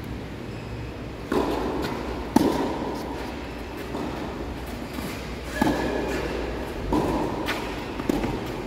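Tennis ball being struck by rackets and bouncing on the court during a rally: about five sharp knocks a second or more apart, the loudest about two and a half seconds in.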